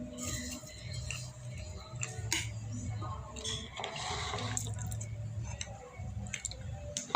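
Scattered light clicks and taps of cutlery against a plate while someone eats, over a low background hum.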